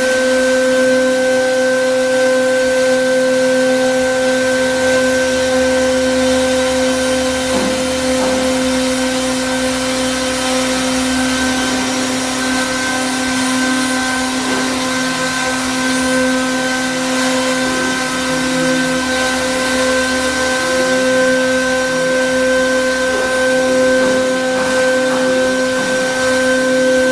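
Air-cooled 3 kW CNC router spindle running at high speed: a steady, even whine of several constant tones over the hiss of its cooling fan.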